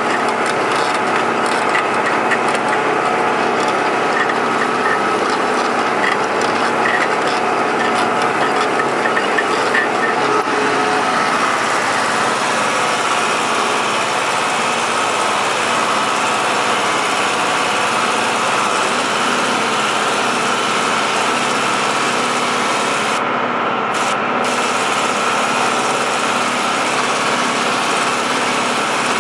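John Deere tractor's diesel engine running steadily under load while working a field, heard from the driver's seat.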